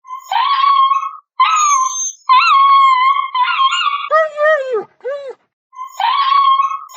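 Dog crying in pain: a run of high-pitched crying yelps, each about a second long. A lower, wavering cry comes a little past halfway, then a short pause before the high cries resume.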